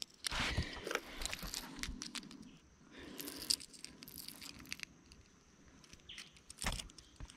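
Small clicks, rattles and rustles of a fishing lure and hook being handled, a hook being fitted to the lure.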